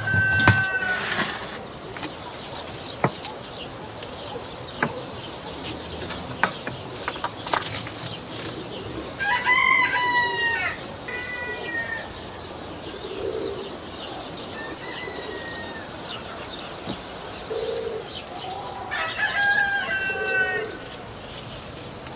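A rooster crowing three times, once at the start, once about ten seconds in and once near the end, with shorter calls between. Under it come sharp clicks and light knocks as lemon halves and bowls are handled at the roasting tray.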